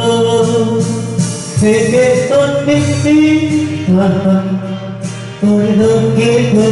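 Karaoke: a man singing held notes into a handheld microphone over a karaoke backing track.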